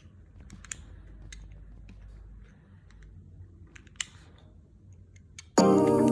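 Faint scattered clicks and taps over a low hum. Background music starts suddenly near the end.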